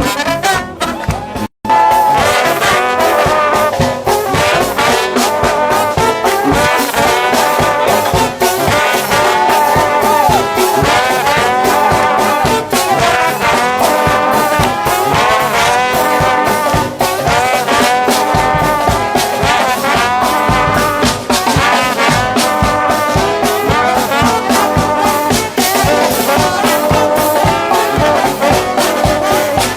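A trombone-led brass shout band playing gospel music, several horns sounding together over a steady beat. The sound drops out briefly about a second and a half in, then comes back in full.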